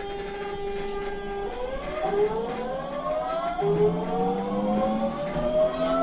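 GTO-VVVF traction inverter of an Osaka Municipal Transportation Bureau 66 series (early-production) train whining as it accelerates. It starts as a steady hum, and about a second and a half in several tones begin rising in steps, getting louder as the train gathers speed.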